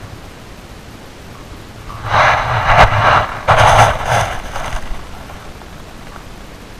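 Handling noise from the camera being moved: a loud rustling, scraping burst in two pulses lasting about three seconds, starting about two seconds in, over a steady hiss.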